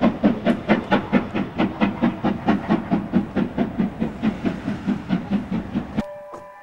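Exhaust beats of the two-cylinder BR Standard Class 7 steam locomotive 70000 'Britannia' working a train away from a stop, sharp and even at about five a second and easing slightly in loudness. Near the end the sound cuts off suddenly and a distant steam whistle with several tones starts.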